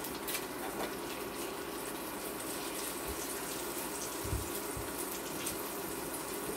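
Eggs frying in oil in a pan, a steady sizzle, with a few light knocks of a spatula against the pan.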